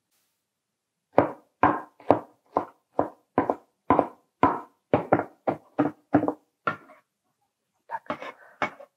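Knife chopping a bunch of fresh mint and basil on a wooden cutting board: a run of about fourteen sharp chops, a little over two a second, then a few softer, scuffing sounds near the end.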